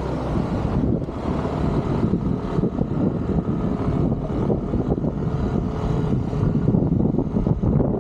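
A road vehicle running along a road, a steady low rumble with wind buffeting the microphone.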